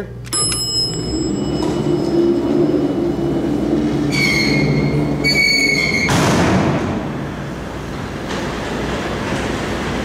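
Hydraulic freight elevator arriving: a click as the call button is pressed, then a steady low hum of the machinery as the car comes in, with two short high beeps from the elevator's signal around the middle. From about six seconds a rush of mechanical noise as the doors and the mesh gate open, settling into a steady rumble.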